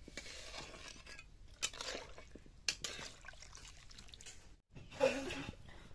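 A metal spatula stirring and scraping in a black iron kadai of fish curry, with a few sharp metallic clinks.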